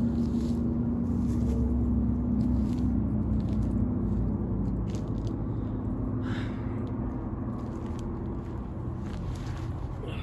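Crunching and scraping of footsteps on dry litter and debris, over a steady low engine-like rumble that eases off about halfway through.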